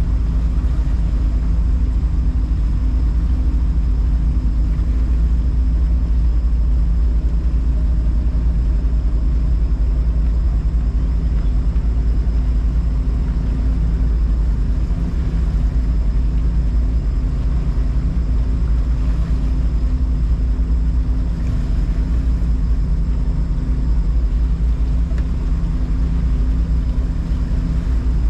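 Motorboat engine running steadily at low speed: a constant low rumble with an even hum.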